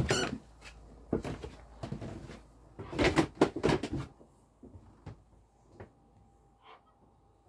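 A string of wooden knocks and thumps as someone climbs down wooden companionway steps into a small yacht cabin. The sharpest knock comes right at the start and the heaviest cluster about three to four seconds in, then a few faint ticks.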